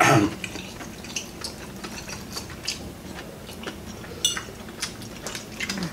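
Eating at a table: scattered light clicks of forks and spoons against ceramic plates, with one short ringing clink about four seconds in. A brief louder sound comes right at the start.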